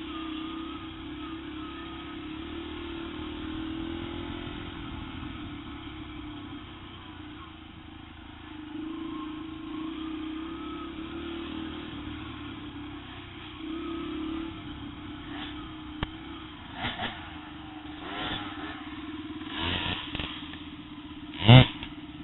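Yamaha TTR125 dirt bike's small four-stroke single running along a trail, its pitch rising and falling with the throttle. Over the last few seconds the bike clatters over bumps, with one loud sharp knock near the end.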